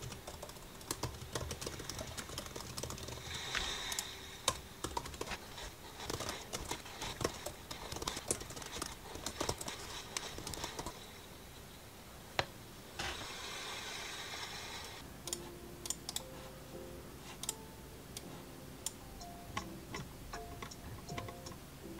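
Typing on a laptop keyboard: a quick, uneven run of key clicks for about the first ten seconds, then only scattered clicks. A brief soft hiss comes a little past the middle, and soft background music with short plucked notes comes in after it.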